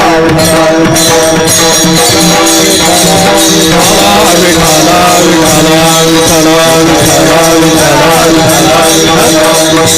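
Devotional kirtan chorus: voices chanting a melody over a steady held drone, kept in time by jingling small hand cymbals (taal).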